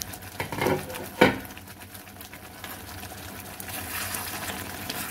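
A few knocks of a utensil against the kadai, the loudest just over a second in, then kadai paneer gravy sizzling in the pan, the sizzle growing louder from about three and a half seconds in.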